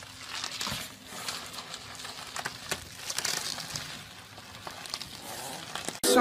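Plastic wrap crinkling and rustling, with many small scattered clicks, as a small dog wriggles along inside a tube of green bubble wrap.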